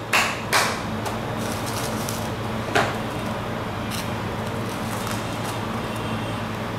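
A steady low mechanical hum, with a few sharp knocks as a cardboard biscuit box is handled on a steel cold plate: two near the start and one just under three seconds in.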